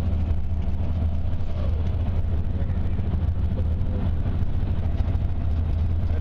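Steady low road and engine drone heard inside the cabin of a car driving at highway speed.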